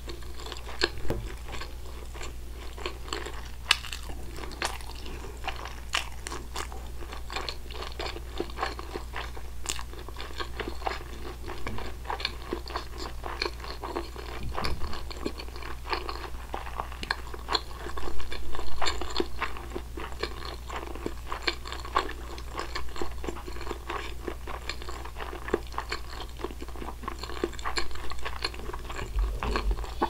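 Close-miked chewing of soy-marinated raw salmon: soft, wet mouth sounds with many small clicks and smacks, a little louder about two-thirds of the way through.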